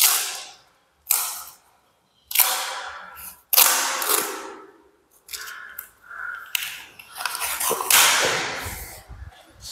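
Tesa low-tack painter's masking tape being pulled off the roll in a series of rasping strips. Each pull starts sharply and trails off, with an echo from the bare room.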